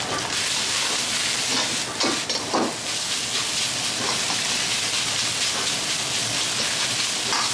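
Fried rice sizzling in a wok over a high gas flame as a steady hiss. The ladle stirring and scraping against the wok can be heard a few times.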